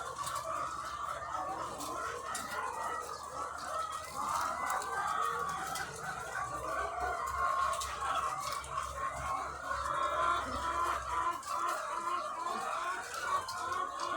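A dense, continuous chorus of thousands of egg-laying hens clucking and calling over one another.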